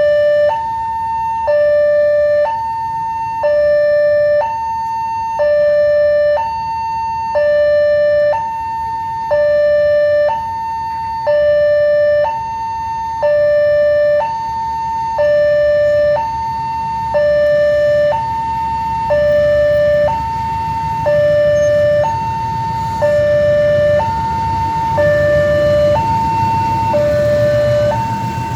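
Railway level-crossing warning siren sounding a two-tone alarm, alternating evenly between a high and a low tone about once every two seconds, signalling an approaching train. A low rumble grows under it in the last several seconds.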